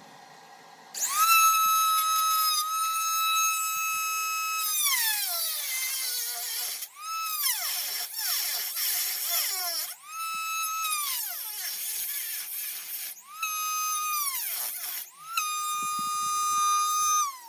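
Small electric rotary tool (Chicago Electric, Dremel-style) whining at high speed while cutting sheet metal; its pitch sags several times as it bites into the steel and climbs back up when eased off.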